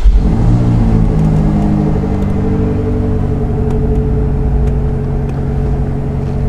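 A car engine starts suddenly and settles into steady running, a low rumble with an even engine tone.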